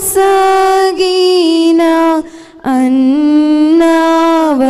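A woman singing a Telugu Christian devotional song into a microphone, in a single voice holding long, drawn-out notes. She breaks off briefly for a breath about halfway, then comes back on a lower note.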